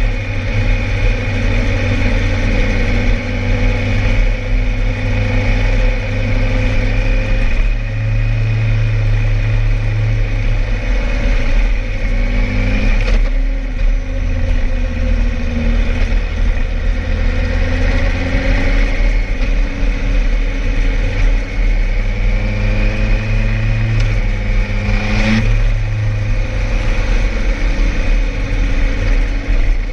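Suzuki GSX-R1000R's inline-four engine running through an aftermarket exhaust while riding on the road. The revs climb and fall, breaking off at a gear change about 13 seconds in and again about 25 seconds in.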